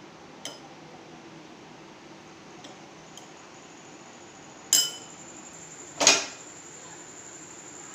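Kitchenware clatter: a faint clink of a metal spoon on a glass bowl of chilli-garlic paste about half a second in, then two loud sharp clanks a little over a second apart past the middle, the first with a short metallic ring, the second as a frying pan meets the stove.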